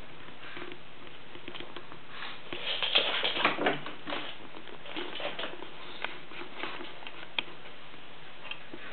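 Pets scuffling and pattering on a floor: a burst of scrabbling and taps about three seconds in, then a few scattered taps, over a steady hiss.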